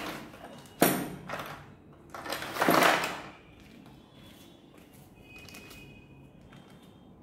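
Handling noises of a drill kit being unpacked: a sharp knock about a second in, then a louder sliding, rustling scrape near the three-second mark, followed by faint clatter.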